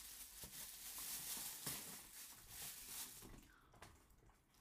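Faint crinkling and rustling of a clear plastic bag handled as an item is unwrapped, dying away about three seconds in.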